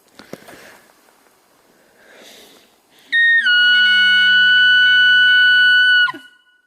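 An elk bugle: a loud, high whistle held for about three seconds, dipping slightly in pitch, over a low growl that sinks, ending in a quick drop. Faint rustling comes before it.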